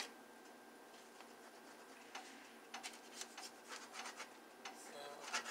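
Kitchen knife cutting through soft floured dough onto parchment paper: faint scratching strokes and light taps of the blade, coming in a few clusters after a quiet first couple of seconds.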